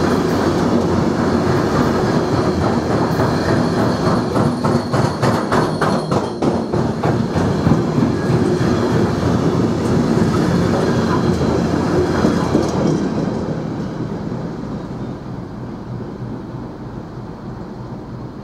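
Freight train of Uacns covered hopper wagons rolling past close by, wheels clattering over the rails, with a rapid, even run of knocks about four to seven seconds in, the beat of a wheel with a flat spot. The last wagons pass about thirteen seconds in and the sound fades away.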